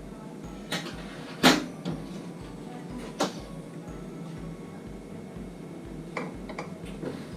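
Scattered knocks and clunks of hard parts being handled, one sharper knock about a second and a half in and a few lighter clicks near the end, over a steady low hum.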